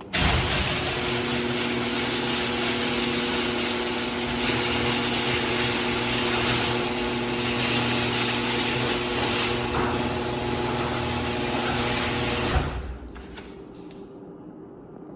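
Electric garage door motor running steadily with a hum as the door travels, then stopping with a sharp clunk about twelve and a half seconds in, leaving a much fainter hum.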